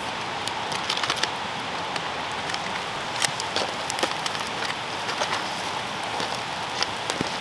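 Diced potatoes, kielbasa and onions sizzling steadily in an opened tinfoil packet on a grate over campfire coals, with many sharp crackles and pops and the foil crinkling as it is pulled open.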